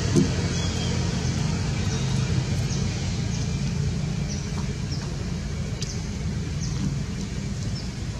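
Steady low outdoor rumble with faint short high ticks scattered through it, and a brief louder sound just at the start.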